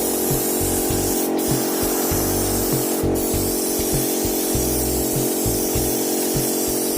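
Kubota RD65DI single-cylinder diesel engine running steadily at a constant speed, with a steady hiss over it.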